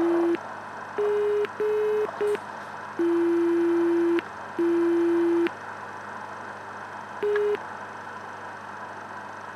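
Electronic beeps from a Jeti telemetry set: steady tones at two fixed pitches, long and short, in an irregular on-off pattern, with a string of beeps through the first half and one short beep about seven seconds in.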